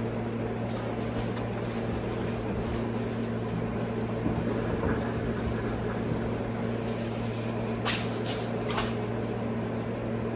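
Steady low machine hum in a workshop, with a couple of light clicks near the end.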